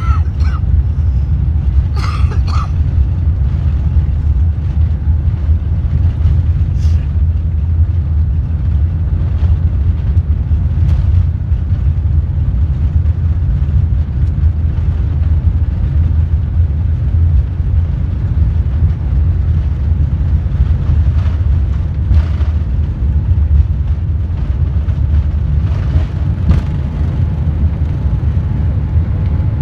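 Airliner cabin noise heard from a window seat while the plane rolls on the ground: a steady, loud low rumble of the engines and wheels. A brief higher sound comes about two seconds in.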